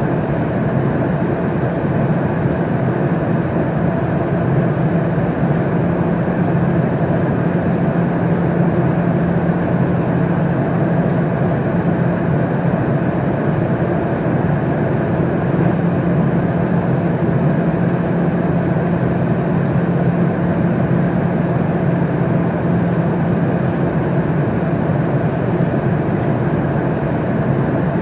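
Airliner cabin noise in flight: a steady, unbroken rushing drone of engines and airflow, heaviest in the low range.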